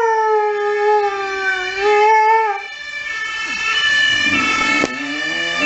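A saluki gives one long howl that starts high, falls in pitch and then holds, ending about halfway through. An emergency vehicle's siren sounds behind it and carries on after the howl stops.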